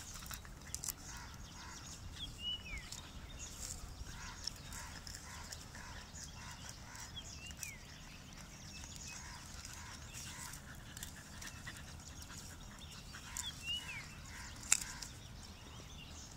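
Faint outdoor background with an animal's soft sounds pulsing about twice a second, three short falling chirps, and scattered light clicks, the sharpest a bit before the end.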